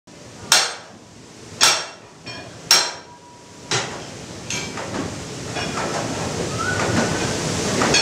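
Water-powered sawmill's log carriage ironwork being struck as the log is reset for a new cut: three sharp, ringing metal strikes about a second apart, then lighter clanks. After that a rattling mechanical clatter builds and grows louder.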